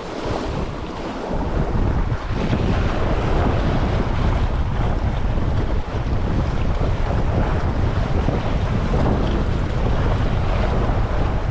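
Wind buffeting the GoPro's microphone: a steady low rumbling noise that grows louder about a second or two in and then holds.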